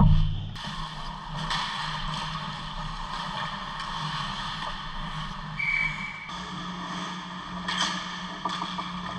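Ice hockey play heard from a camera mounted on the net: a sharp knock right at the start, then skate blades scraping the ice and sticks clattering, over a steady low hum.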